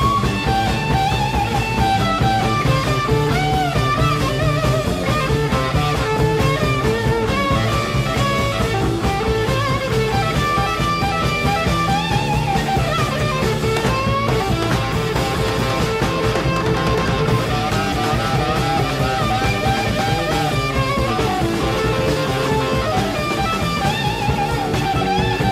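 Live blues-rock: a lead electric guitar solos over bass guitar and drums, the lead line weaving up and down without a break.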